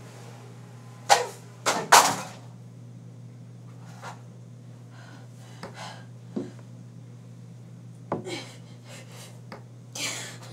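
Objects being handled off-camera: three sharp knocks in the first two seconds, then scattered lighter clicks and bumps, over a steady low hum.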